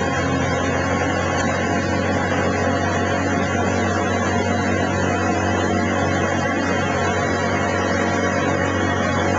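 Motorboat engine running steadily, a constant low drone with a rushing wash of noise over it.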